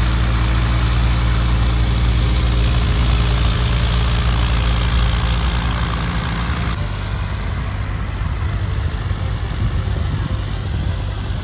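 Light aircraft's piston propeller engine running steadily as the plane taxis on the runway. About two-thirds of the way through, the sound changes abruptly to a slightly quieter, rougher engine noise.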